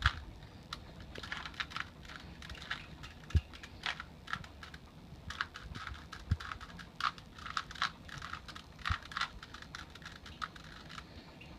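Plastic Rubik's Cube being turned by hand: irregular clacking and clicking of its layers rotating, in quick clusters, with a few soft knocks.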